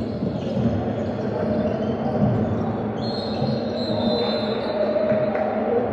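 Basketball game in play on a hardwood gym floor: a ball dribbling and players' shoes on the court over a steady background of gym voices, with a high squeal lasting a second or so about three seconds in.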